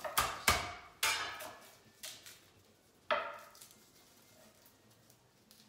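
Kitchen knife chopping on wooden cutting boards: about six sharp, irregular knocks in the first three seconds, then only faint ticks.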